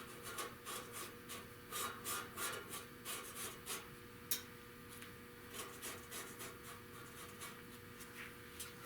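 Faint, irregular scratchy strokes of marking a cut line on a sheet-metal patch panel, with a single sharper click about four seconds in.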